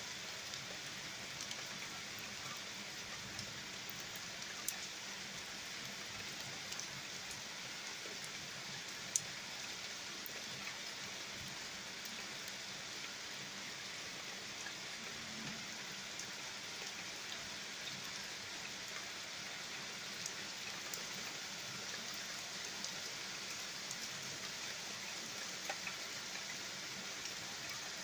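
Steady rain from a summer thunderstorm falling, an even hiss, with a few sharp ticks, the loudest about nine seconds in.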